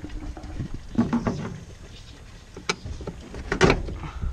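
Screwdriver scraping and clicking against a sheet-metal retaining tab under a 1971 VW Super Beetle's dashboard, with a few sharp metallic clicks, the sharpest one late on.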